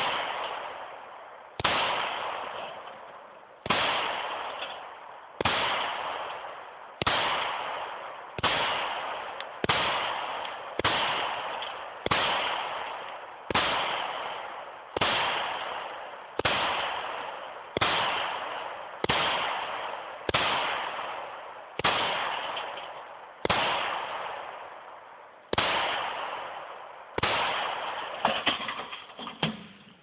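About twenty 9mm gunshots fired one at a time, roughly one every second and a half and a little faster near the end, each trailing off in echo.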